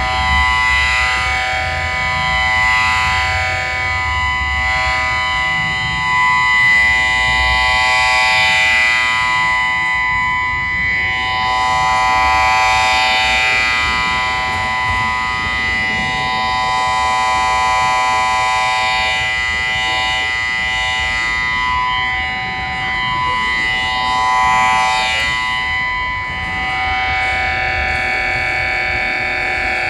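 Electronic whining and buzzing of lights' power supplies, picked up as light flicker by a small solar panel feeding an audio amplifier. Many steady tones sound together, with wavering sweeps that swell and fade every few seconds, like a siren.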